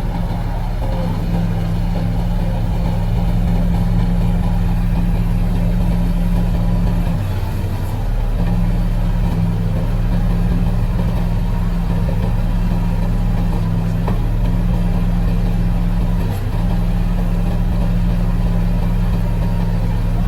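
Bobcat 753 skid steer loader's four-cylinder Kubota diesel engine running steadily. Its pitch dips briefly about seven seconds in and again near sixteen seconds.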